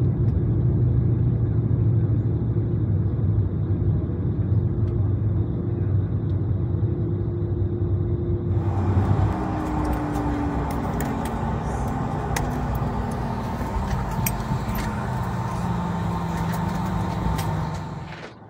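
A loud, low vehicle engine rumble with steady hum tones. About halfway through, a brighter hiss and scattered clicks come in and the hum tones slowly fall in pitch; the sound drops away sharply near the end.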